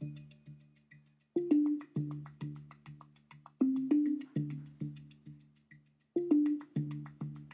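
Instrumental background music: a short repeating phrase of struck notes that start sharply and die away quickly, with brief pauses between phrases.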